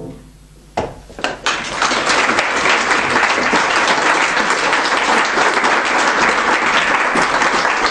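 The piano's last chord dies away. A few scattered claps follow about a second in, and they quickly swell into steady applause from an audience.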